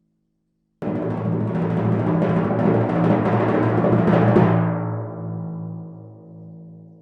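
Timpani roll: it starts suddenly about a second in, holds loud and grows slightly, then stops around four and a half seconds in, leaving the drum ringing on its low pitch as it fades away.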